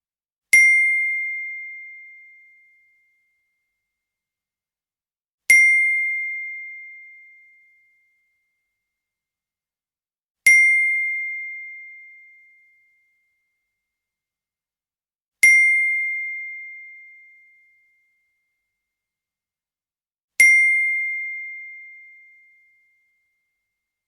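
iPhone text-message alert tone: a single bright chime, repeated five times about five seconds apart, each ringing out over about two seconds.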